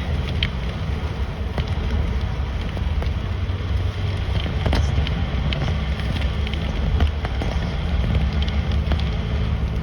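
A car driving in the rain: a steady low rumble of tyres and engine, with scattered sharp ticks of raindrops striking the car.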